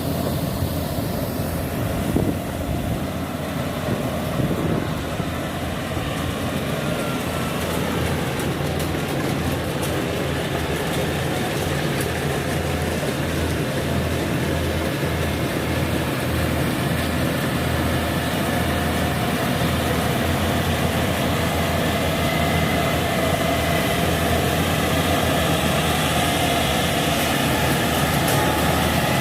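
Kubota DC70 rice combine harvester running steadily as it works, its diesel engine and machinery giving a continuous drone that grows slightly louder toward the end.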